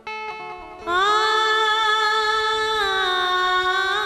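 A woman sings a long drawn-out note in a Bundelkhandi sawan folk song over harmonium accompaniment. The note scoops up as it starts, about a second in, then steps down in pitch and holds again. The first second is quieter, with steady harmonium notes.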